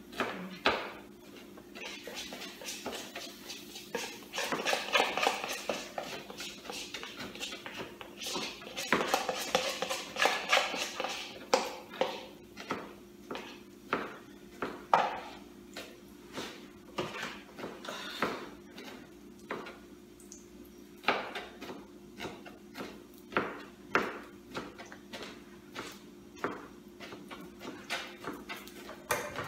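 Cooking utensils clinking, knocking and scraping against pots and pans in a string of sharp clicks, with two longer scraping stretches in the first half.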